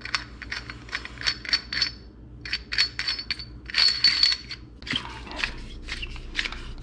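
Light metallic clinks and ticks, some with a short ringing tone, as the spring collar is fitted onto the threaded body of a Koni coilover shock. The clinks come irregularly, a few a second, with pauses between.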